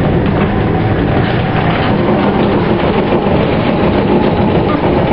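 Vintage Wellington electric tram running along its rails, heard from inside the passenger saloon: steady, even noise of the wheels and running gear.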